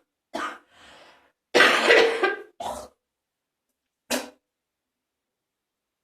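A person's wet, phlegmy coughing: a short cough, a longer loud hacking bout about a second and a half in, a shorter cough after it, and one last cough about four seconds in.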